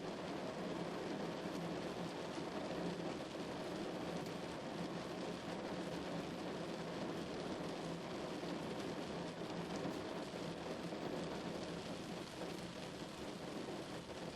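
Heavy rain drumming steadily on a car, a dense even patter with no breaks.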